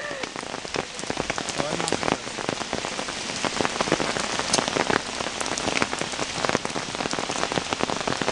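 Steady rain falling, with many sharp drop hits close by.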